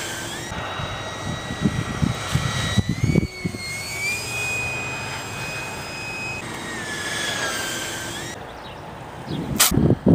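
64mm electric ducted fan of an Art-Tech JetTiger RC jet whining in flight, its pitch rising about three seconds in, holding, then falling again. Gusts of wind rumble on the microphone early on, and there is a sharp loud bump near the end.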